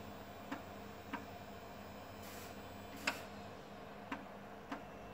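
3.5-inch floppy drive working through a disk during a sector check under Windows 98 SE. Its read head steps with sharp clicks, six or so at uneven intervals with the loudest about three seconds in, and there is a short hiss a little over two seconds in, over the steady hum of the running PC.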